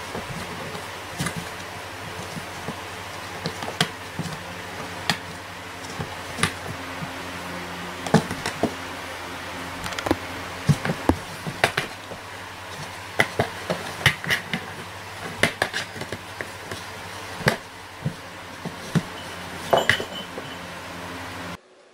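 Cats batting and pawing at a cardboard box through its hand holes: irregular sharp taps and knocks on the cardboard, over a steady low hum that cuts off just before the end.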